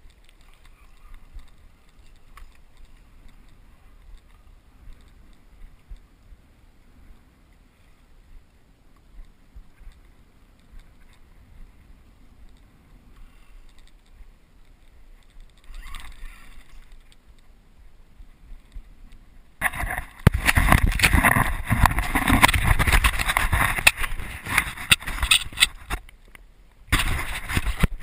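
Small-craft sounds from a kayak on the water: faint lapping with small ticks, then about twenty seconds in a loud rushing noise for about six seconds, and another short burst near the end.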